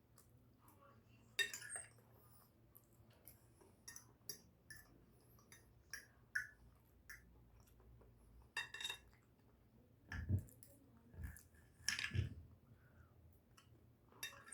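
Eating sounds: cutlery clinking and scraping on a plate, with chewing, as scattered small clicks and a few louder clinks, and some dull low knocks about ten to twelve seconds in.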